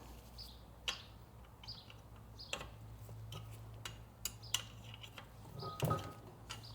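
Scattered light metallic clicks and taps from the magnetic oil drain bolt being threaded back into a Briggs & Stratton LO206 kart engine and brought up snug.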